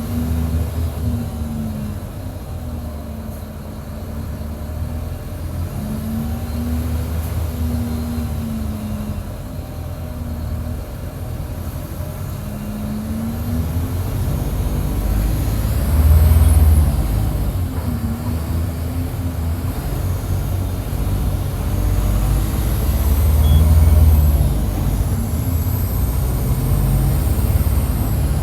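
Mercedes-Benz OF-1722 bus's front-mounted six-cylinder turbodiesel, heard from inside the bus close to the engine, running under load. Its revs rise and fall as the bus is driven hard, getting loudest twice, about halfway through and again near the end.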